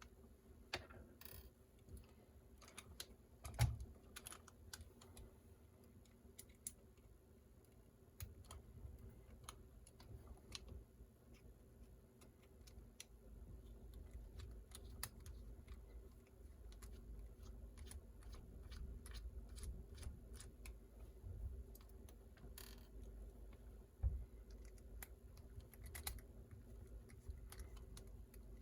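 Faint, scattered clicks and taps of a small screwdriver, tiny screws and plastic parts being handled while the battery tray is unscrewed from an Axial SCX24 mini crawler's chassis. A louder knock comes a few seconds in and another near the end.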